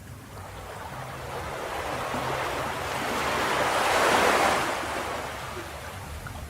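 Ocean waves breaking on a beach: one wave's surf builds to a crash about four seconds in, then washes back.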